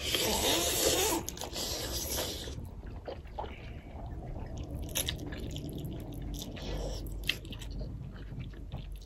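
Close-up eating sounds of spicy Korean ramen noodles: a long, loud slurp in the first couple of seconds, then chewing with scattered short mouth clicks and smacks.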